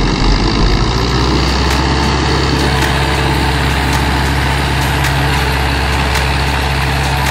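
Farm tractor engine running steadily under load as it hauls a heavy log trailer through snow.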